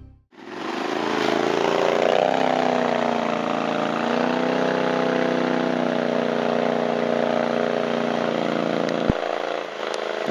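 The engine of a 6x6 amphibious ATV running under load as the machine churns through deep mud and water, with splashing. It revs up about two seconds in and then holds steady. There is a sharp click about nine seconds in.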